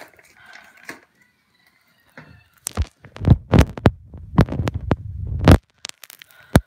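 Handling noise on a phone's microphone: a dense run of loud knocks and rumbling thuds for about three seconds as the phone is gripped and moved, ending in a sharp click.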